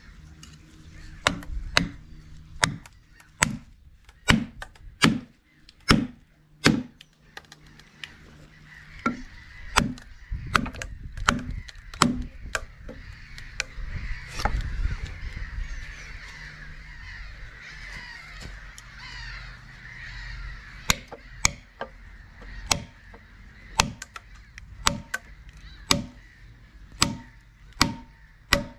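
Club hammer striking wooden wedges driven into a log to split it lengthways: sharp knocks about one every two-thirds of a second, in three runs with a pause of several seconds near the middle.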